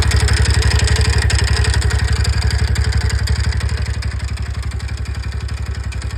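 TVS Ntorq scooter's single-cylinder engine running at idle with a loud, abnormal mechanical noise, easing slightly toward the end. The noise comes from a failed crankshaft connecting-rod bearing.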